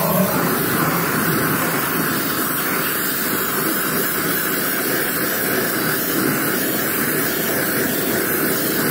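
Oxy-fuel gas torch flame hissing steadily as it post-heats a fresh nickel-rod weld on a cast-iron hydraulic reservoir, warming the part back up to relieve welding stress.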